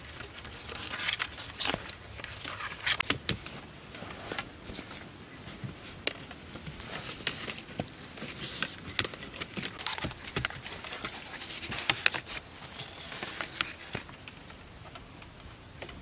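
Wooden poles, sticks, rope and leaves being handled while a stick frame is lashed together: irregular crackling, rustling and light knocks.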